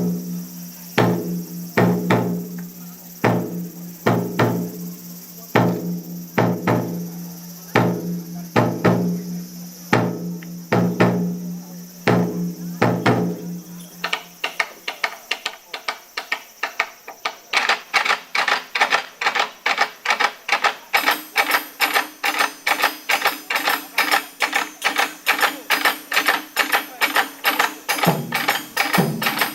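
Japanese taiko drums played by a children's ensemble: heavy ringing strokes about one or two a second, then about halfway a switch to a fast, even run of sharp, light strikes, about four or five a second.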